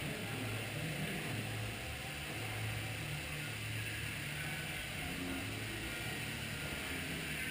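Steady mechanical running of a dark-ride boat ride's machinery and water channel: a low hum that swells and fades under a constant hiss.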